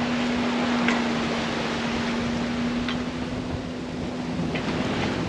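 Wind and rushing water around a sailing yacht under way in rough seas, with a steady low hum and a few short, high squeaks or creaks, about four in all.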